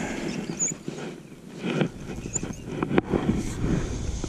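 Fishing gear being handled in a small boat: scattered light knocks and rustles, with one sharp click about three seconds in.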